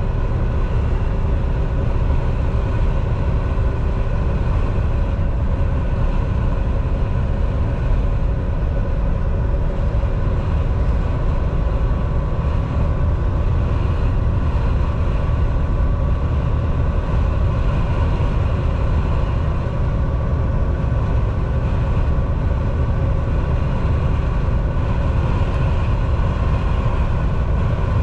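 Steady engine and road drone heard from inside a Volvo semi-truck's cab at highway speed. A deep rumble dominates, with a faint steady whine above it.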